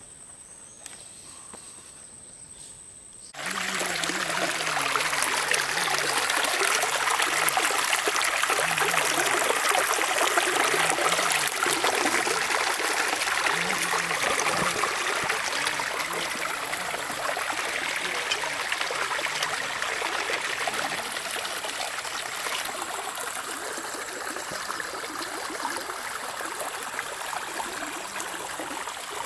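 Stream water rushing and trickling over rocks, loud and steady, cutting in suddenly about three seconds in. Before that, only a faint steady high-pitched whine.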